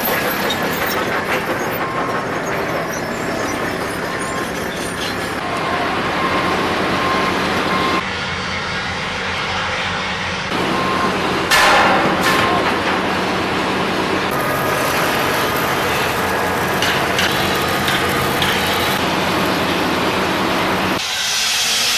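Heavy construction machinery running steadily, with an engine hum under a noisy mechanical din. The mix changes abruptly several times, and a short loud burst comes about halfway through.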